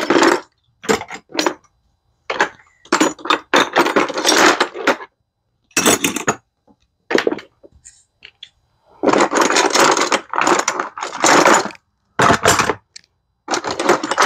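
Metal hand tools clattering against each other and against a plastic toolbox as they are packed in: repeated bursts of rattling, some over a second long, with short pauses between.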